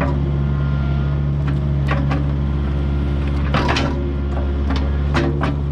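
Kubota U55-4 mini excavator's diesel engine running steadily under work, with several short knocks and a longer scrape from the digging.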